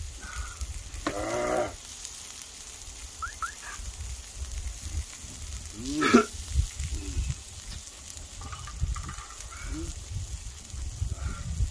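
Short wordless vocal sounds from men eating and drinking: a hum-like groan about a second in and a rising exclamation about six seconds in. Beneath them, faint sizzling from a stone griddle over a steady low rumble.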